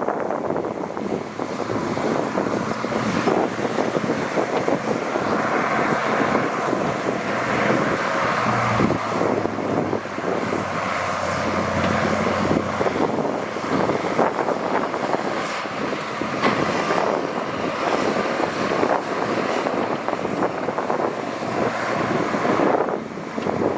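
Diesel engine of heavy earthmoving machinery running steadily, with wind buffeting the microphone.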